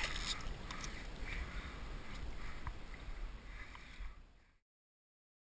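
Water splashing as a released snook kicks away from the angler's hand, then light water and outdoor noise with a few small taps. The sound cuts off to silence about four and a half seconds in.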